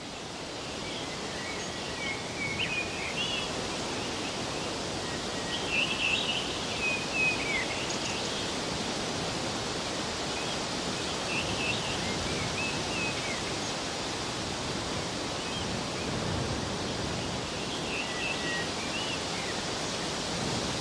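Steady hiss with small birds chirping in a few short bouts.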